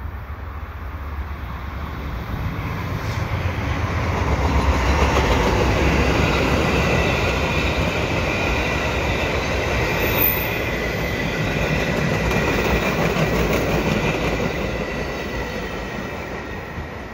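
Via Rail passenger train passing at speed, a P42DC diesel locomotive leading Renaissance coaches: rumble and rail noise swell over the first few seconds, hold while the coaches go by, and fade near the end. A steady high wheel squeal rides over the noise as the coaches pass.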